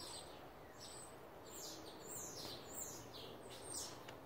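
Wild songbirds chirping, a quick run of short, high, falling chirps, two or three a second, faint against outdoor background noise.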